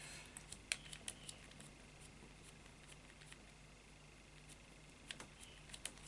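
Faint clicks of a Rolson combination bike lock's number dials being turned by hand: a quick run of clicks in the first second and a half, then a few more near the end.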